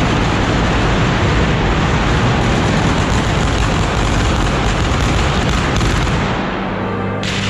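Fireworks on the Easter cart going off in a dense, continuous barrage of bangs. About six seconds in the barrage drops away and music comes in.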